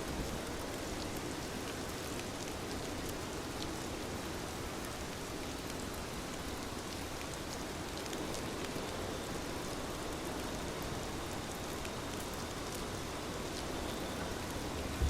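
Steady rainfall, an even wash of rain with scattered small ticks of drops.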